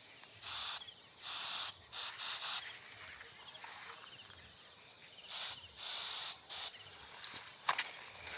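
Pump-action hand sprayer hissing out insecticide in short squirts: a group of four in the first few seconds, then three more about halfway. A steady high insect trill runs underneath.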